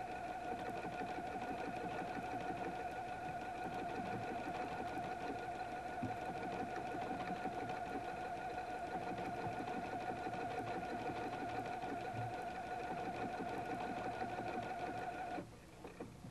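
Husqvarna Viking Platinum 770 computerized sewing machine running steadily as it stitches a programmed sequence of letters, a steady hum with a high whine. It stops suddenly about a second before the end.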